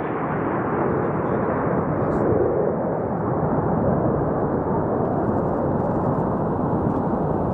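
Jet engine noise of an F/A-18 fighter on a low pass through a canyon: a steady, loud rumble whose hiss slowly dulls as the jet moves away.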